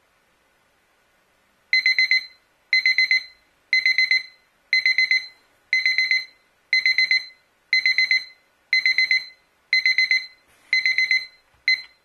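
Mudder digital kitchen timer's alarm beeping after its countdown runs out. High-pitched beeps come in quick groups of four, repeating about once a second for about ten rounds, and the last round is cut short near the end.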